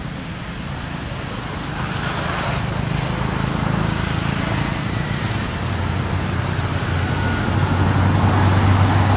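Engine hum and road noise from a motor vehicle, growing steadily louder toward the end.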